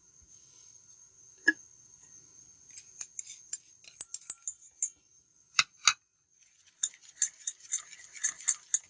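Wire whisk beating a thick batter in a stainless steel bowl, its wires clicking and clinking against the metal in quick strokes that come faster near the end. A single tap comes about a second and a half in.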